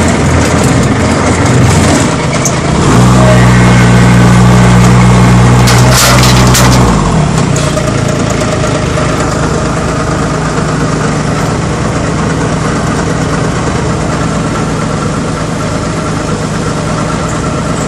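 Small diesel engines of a mini excavator and a motorised dumper running. About three seconds in, an engine is revved hard for about four seconds, with a short burst of crunching near its end, then settles back to a steady idle.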